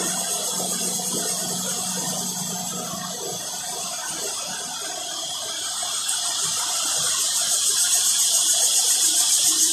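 Cicadas calling in chorus, a steady high-pitched buzz. About six seconds in the chorus grows louder, with a fast pulsing.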